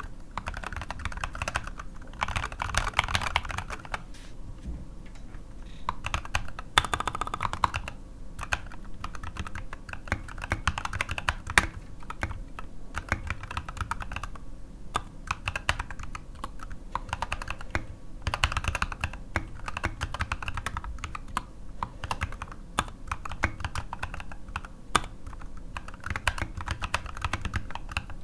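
NK65 mechanical keyboard with unlubed C3Equalz Tangerine V2 linear switches and SA-profile ABS keycaps being typed on: a continuous stream of key clacks at typing speed.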